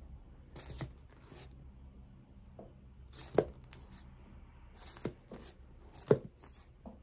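Comic books being handled and leafed through: a handful of short slaps and rustles as books are picked up, flipped and set down, the loudest about three seconds and six seconds in.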